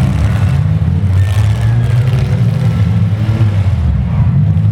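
Engines of demolition-derby minivans and pickup trucks running and revving together in a loud, steady low rumble.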